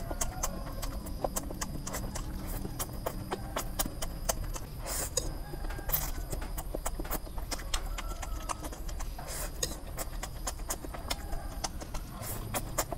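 Noodles being slurped and chewed close to the microphone: frequent wet mouth clicks and smacks, with a few longer slurps about five, six and nine seconds in.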